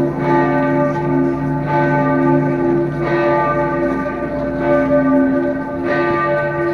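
Church bells ringing, several overlapping tones sustaining with fresh strikes every second or so.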